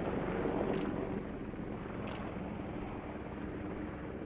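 AH-64 Apache attack helicopter flying overhead: a steady drone of rotor and turbine engines that eases slightly about a second in.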